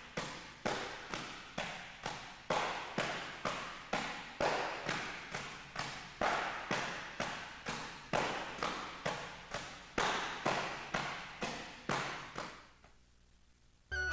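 Open palms slapping an iron palm training bag, two people striking in turn at a fast, even rhythm of about two slaps a second. The slapping stops near the end.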